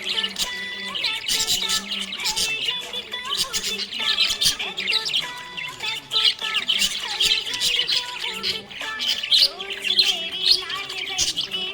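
Several budgerigars chirping and squawking rapidly and continuously over background music.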